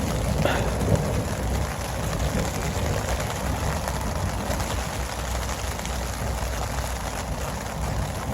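Steady rain from a thunderstorm falling on a DIY tent.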